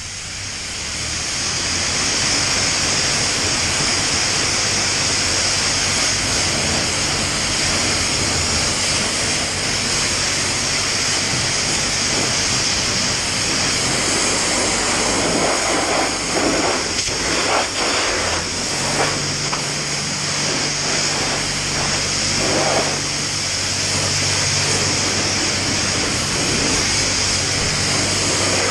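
High-pressure car-wash lance spraying a dirt bike: a loud, steady hiss of the water jet, which turns rougher and uneven in the middle as the jet moves across the wheel and frame, over a low steady hum.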